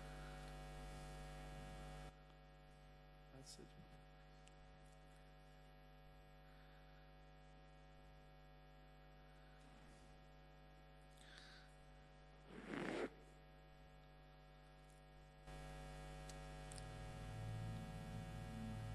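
Faint, steady electrical mains hum that drops away about two seconds in, leaving near silence. There is a short noisy burst about thirteen seconds in, and the hum comes back near the end.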